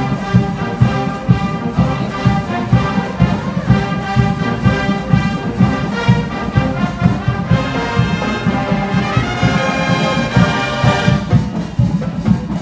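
Full marching band playing: brass with a steady drum beat, sousaphones and the bass drum underneath. The upper brass builds to a loud, bright peak about eleven seconds in, then drops back.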